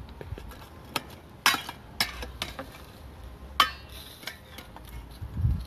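Metal utensil clinking against a metal bowl and a plate while a grilled steak is moved onto the plate: a handful of sharp clinks, the loudest about three and a half seconds in with a brief ring.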